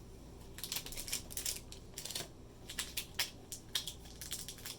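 Trading cards being handled: a string of small irregular clicks and taps.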